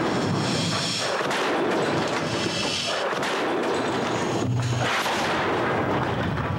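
Compressed-air cannon blasts and debris crashing into masonry and glass walls: a dense, continuous noise with several heavier hits along the way.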